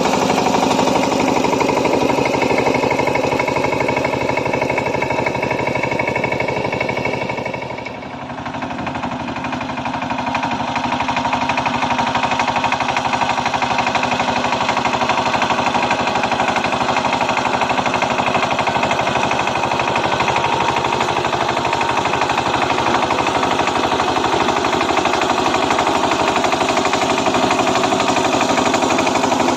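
Kamco power tiller's single-cylinder diesel engine running hard with a fast, steady knocking beat while it pulls dry-land tynes through the soil in deep ploughing. The sound drops away briefly about eight seconds in, then comes back to full strength.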